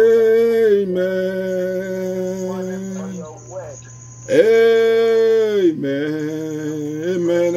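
A man's voice singing or chanting long drawn-out notes in worship: two held phrases of about three seconds each, the first starting at once and the second about four seconds in, each sliding up into the note and falling away at the end. A steady electrical hum sits underneath.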